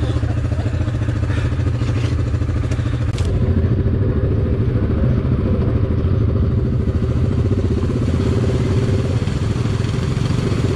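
ATV engine running steadily at low speed, heard from the machine being ridden. There are a few sharp clicks and knocks in the first three seconds.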